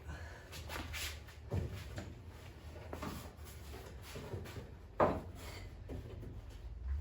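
Scattered light knocks and clunks over a steady low hum, with one sharper knock about five seconds in.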